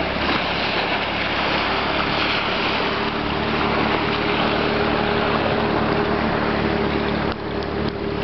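Steady rush of wind buffeting the microphone over choppy river water slapping at a kayak, with a brief dip in loudness about seven seconds in.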